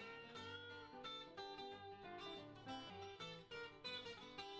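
Quiet background music of plucked guitar.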